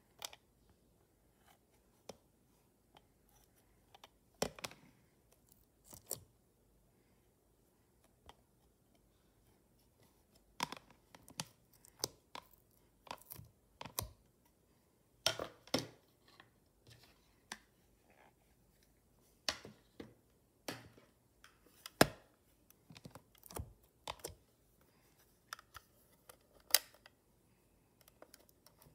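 Irregular sharp clicks and taps of small plastic items being handled: a makeup brush against an eyeshadow palette and small plastic pots. The clicks are sparse at first and come thicker from about a third of the way in.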